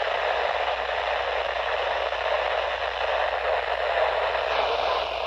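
Steady radio static hiss from a weather radio receiver as the broadcast voice drops out mid-message: the signal is fading in weak reception.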